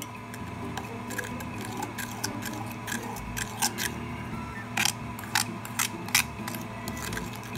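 Metal spoon scraping and clicking against a ceramic bowl while creaming butter, with a run of sharper knocks in the second half.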